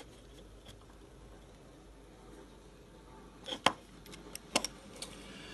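A few light, sharp clicks and taps from handling a metal pocket watch, clustered about three and a half to four and a half seconds in, over quiet room tone.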